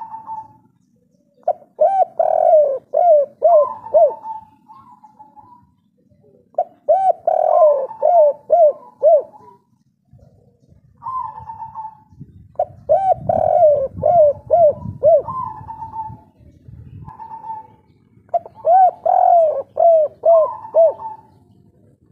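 Spotted dove singing its 'kuk 3' cooing song. The song comes four times, each a quick run of four or five coos, with a few single coos between.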